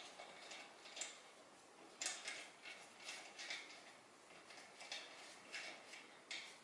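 Faint, irregular metallic clicks of a socket turned by hand on a loosened car wheel bolt, spinning it out of the hub.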